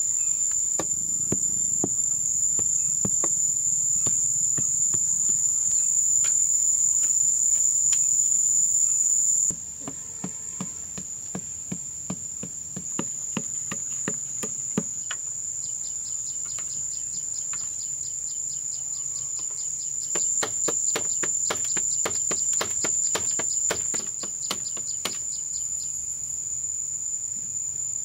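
A loud, steady, high-pitched insect drone from the surrounding vegetation, dropping in level about a third of the way through. It is overlaid by runs of quick, sharp knocks and taps in the middle and again later on.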